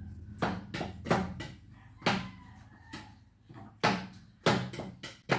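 About half a dozen sharp knocks and clacks at uneven intervals: kitchen clatter from cat food being smashed by hand so that a toothless cat can eat it.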